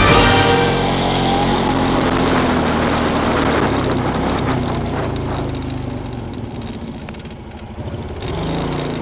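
Quad bike (ATV) engine running under way, its sound fading off about seven seconds in and picking up again near the end.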